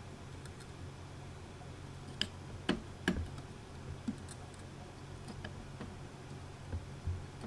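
Soldering a motor wire to an ESC tab: a few light clicks about two to three seconds in, from the soldering iron and wire being handled against the joint, over a steady low hum.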